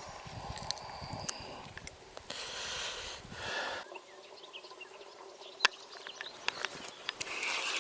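Rustling and scattered sharp clicks from handling fishing tackle, one click much louder than the rest, then a fishing reel starts to whir as the line is wound in near the end.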